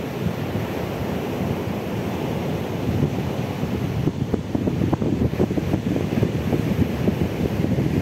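Black Sea surf breaking and washing onto a pebble shore, with wind buffeting the microphone, the buffeting stronger from about halfway through.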